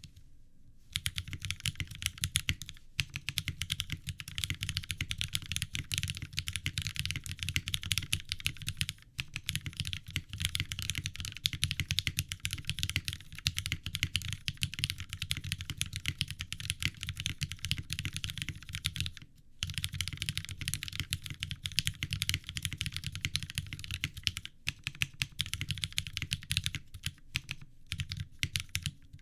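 Fast, continuous typing on a mechanical keyboard with vintage Cherry MX Black linear switches lubed with GHv4, in an aluminium full plate with GMK keycaps. The keystrokes start about a second in and run in a steady stream, broken by a few brief pauses.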